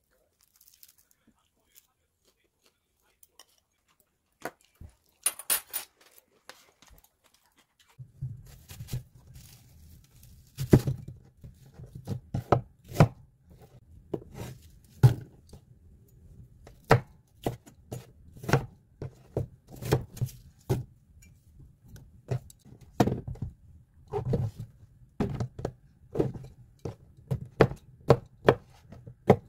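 Kitchen knife chopping onion on a wooden cutting board: a run of irregular sharp knocks, some much louder than others. It starts after a few light clicks and comes over a low steady hum.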